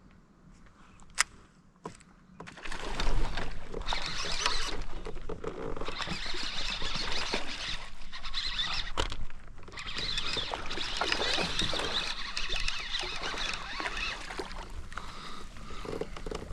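Water splashing and sloshing close to a kayak, starting suddenly about three seconds in and running on as a dense, crackling splashing. Two sharp clicks come before it.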